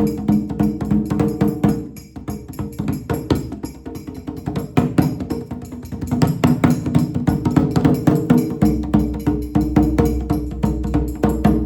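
Djembe played with quick hand strokes in a dense, steady rhythm, dropping quieter about two seconds in and building back up a few seconds later. Steady low tones sound underneath, with a deeper one coming in about three seconds before the end.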